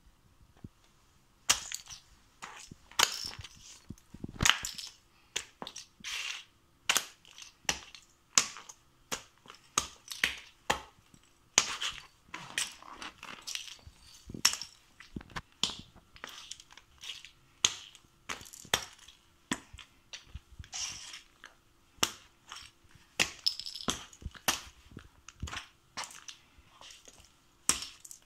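Sneaker soles stepping on and grinding small miniature figurines and their square bases against a hard floor. It is an irregular run of sharp cracks and crunches, often several a second.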